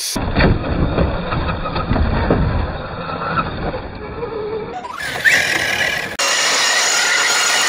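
Electric RC rally car running on a dirt trail: a low rumbling, crackling noise of the car moving over dirt for the first few seconds, then the electric motor's whine rising about five seconds in and running steadily through the last part.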